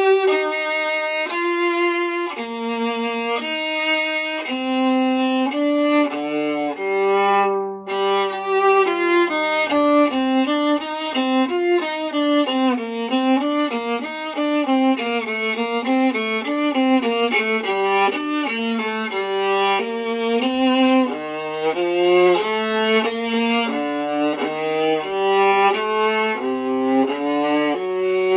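Vintage European Stradivarius-model 15.5-inch viola bowed in a melody. It opens with longer held notes, then moves into quicker running passages from about ten seconds in, dipping to low notes now and then.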